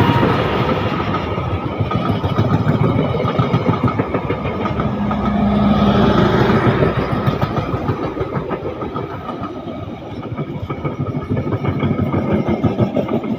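A train passing close by, its wheels clattering rapidly and continuously over the rails.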